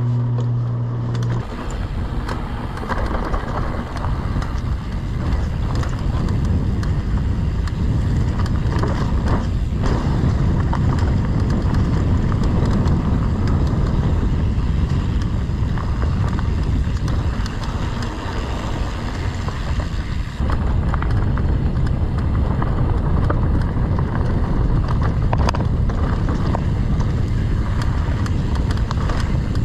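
Fezzari Cascade Peak mountain bike ridden fast down a dirt trail: a steady rumble of tyres on the ground and wind against the microphone, with the bike's chatter and rattles over bumps. A steady buzzing tone at the start stops after about a second and a half.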